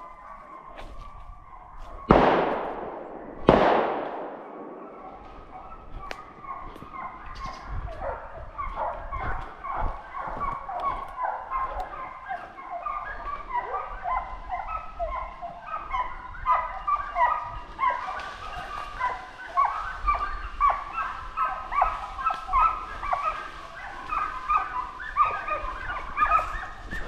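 Two gunshots about a second and a half apart, each with a ringing tail. A few seconds later a pack of hunting dogs starts barking and baying without a break, the barking getting denser towards the end.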